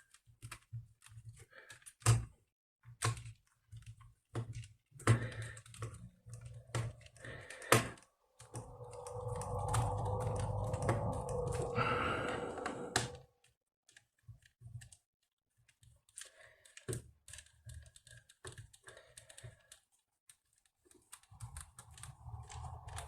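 Scattered clicks and taps of small screws and a screwdriver being handled against a laptop's plastic case. About eight seconds in there is a steady noise with a single held tone that lasts about four seconds.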